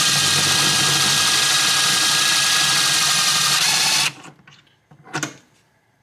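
DeWalt power drill spinning a Hoover meplat trimmer to trim a bullet's tip, running steadily with a steady whine, then stopping abruptly about four seconds in. A short click follows about a second later.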